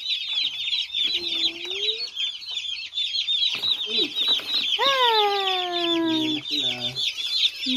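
A boxful of broiler chicks peeping continuously, many rapid high-pitched chirps overlapping.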